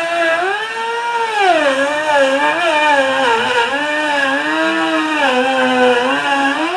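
Electric router with a straight cutting bit running as it cuts through OSB wall sheathing, guided along the framing to cut out a window opening. Its high whine sags and recovers in pitch several times as the load on the bit changes.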